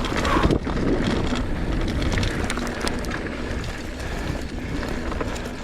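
Mountain bike riding along a dirt trail: steady rumbling tyre and trail noise with scattered small clicks and rattles, and wind rushing over the microphone.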